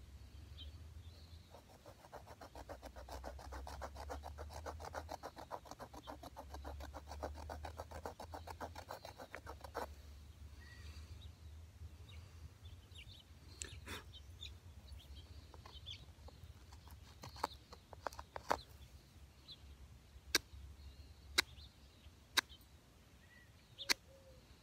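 A flint shard scraping and shaving a mullein spindle. Rapid scraping strokes run for about eight seconds, then stop; after that come a handful of single sharp clicks, roughly a second apart, over a low steady rumble.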